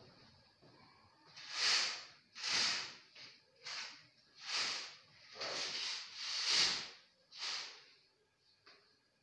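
Rail-mounted mosquito net being drawn along its ceiling track: about seven swishes in a row, each under a second, as the netting is pulled along the rail.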